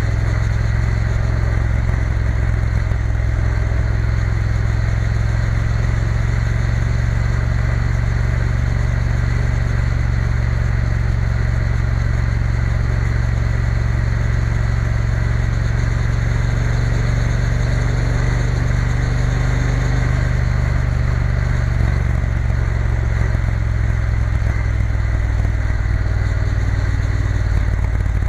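Triumph Bonneville T120's parallel-twin engine running steadily at a cruise, heard from the rider's helmet position with wind rushing past. The engine note shifts slightly near the end.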